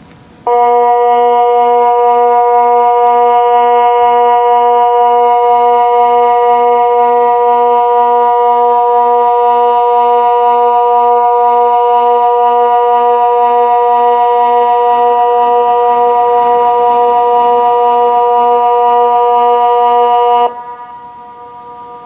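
Kockum Sonics Delta 4 electronic siren sounding the Swiss water alarm: one steady, unwavering chord-like blast that starts abruptly and cuts off about twenty seconds later, one of the water alarm's long fixed-pitch tones. Its echo rings on briefly after it stops.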